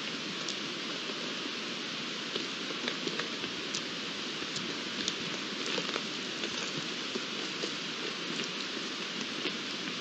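Irregular light clicks and knocks of two young red deer stags' spike antlers as they spar, over a steady hiss.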